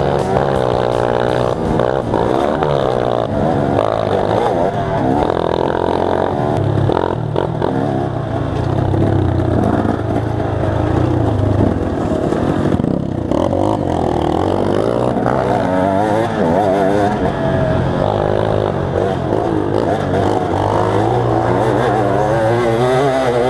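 KTM 250 EXC two-stroke dirt bike engine revving up and down as it is ridden, the pitch rising and falling with the throttle, with a short drop about halfway through.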